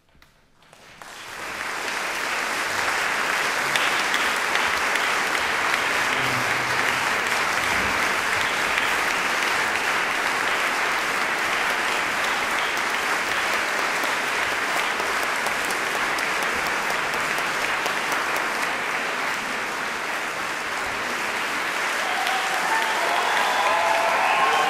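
Concert hall audience breaking into applause about a second in, rising quickly to steady, heavy clapping. A few pitched calls rise above the clapping near the end.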